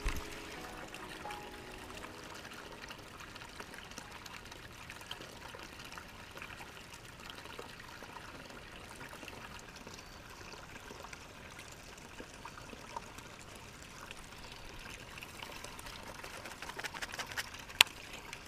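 Faint, steady trickle of running water, with a few sharp clicks near the end.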